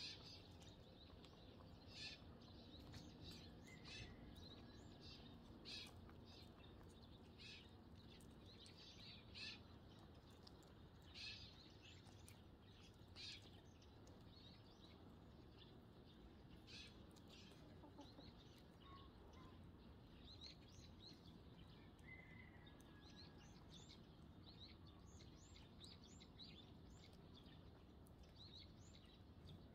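Eurasian tree sparrows chirping faintly: single short chirps every second or two, then a quicker run of softer chirps in the second half, over a low steady background hum.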